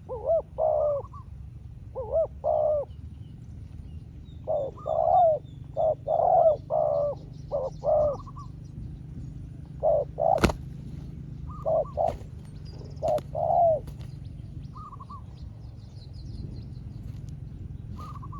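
Spotted doves cooing in short repeated phrases, two birds answering each other in turn in a territorial calling match. A single sharp click sounds about ten and a half seconds in, and faint chirps of small birds are heard behind.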